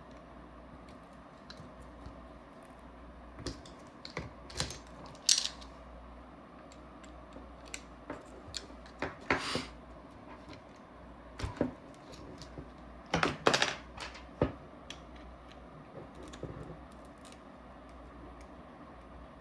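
Scattered small metal clicks and clinks of hand tools and small screws being handled and set down while a paintball marker's frame screws are taken out. The loudest clinks, some briefly ringing, come in clusters about five, nine and thirteen seconds in.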